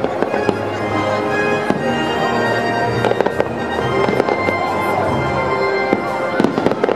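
Aerial fireworks bursting with many sharp bangs and crackles, over music.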